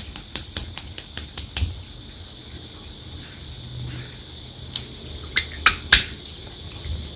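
Clear slime being squeezed and pressed by hand, making sharp clicking pops. They come about five a second for the first second and a half, then pause, then a few louder pops come close together around five to six seconds in.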